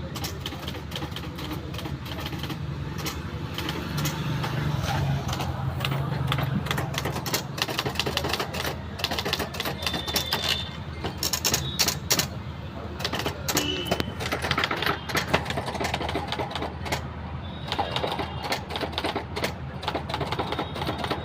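Manual typewriter being typed on at high speed: a fast, continuous stream of key clacks, with a steady low hum underneath.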